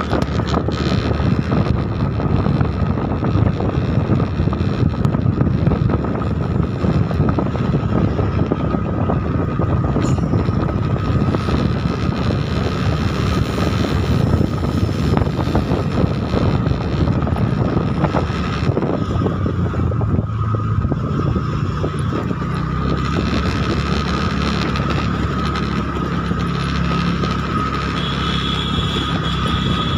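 Motor vehicle running steadily as it travels along a road, with wind noise on the microphone.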